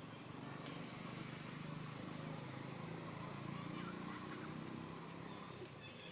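A faint motor engine running in the background, its hum swelling through the middle and fading near the end.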